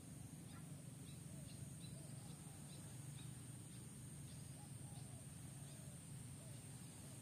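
Faint outdoor background: a steady low rumble and a thin, steady high whine, with faint short bird chirps scattered throughout.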